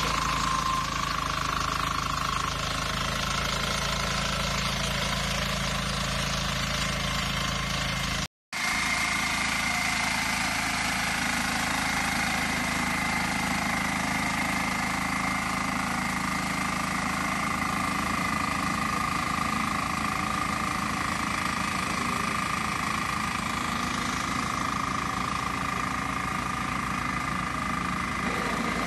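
Crawler-type orchard mower's engine running steadily while the mower cuts tall grass, with a steady high whine over the engine note. The sound drops out for a moment about eight seconds in.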